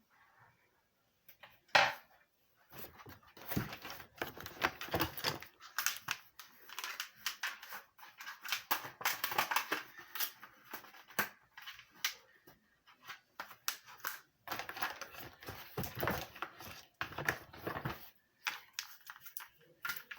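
Close handling noise: irregular rustling and clicking, with one sharp knock about two seconds in.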